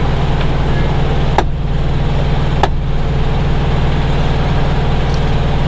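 Diesel engine of a Freightliner Coronado truck idling steadily, with two sharp clicks about a second and a half in and again a second later.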